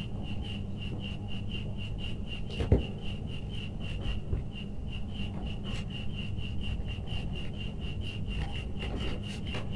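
Electrical wires being twisted into a splice by hand and then with pliers: faint rubbing and handling, with one sharp knock about three seconds in. Under it runs a steady high chirping at about five pulses a second, with a low hum.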